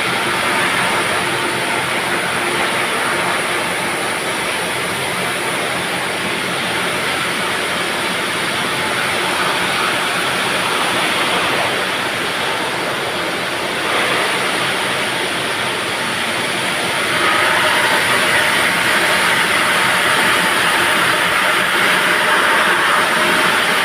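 Heavy stone-handling machinery running steadily with a loud, continuous mechanical din, getting louder about seventeen seconds in.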